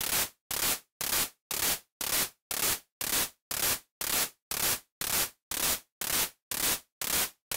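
Synthesized handclap from a white-noise oscillator in the Massive X soft synth, retriggering about twice a second as short bursts of hiss. A four-peak envelope, built to imitate the Roland TR-808 clap, gives each burst its multi-clap front end. Each burst's tail is still too sustained for a tight clap.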